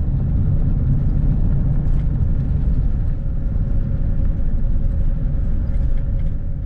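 A vehicle driving along a cracked paved road: a loud, low, steady rumble of tyre and wind noise. A faint steady whine joins about a third of the way in.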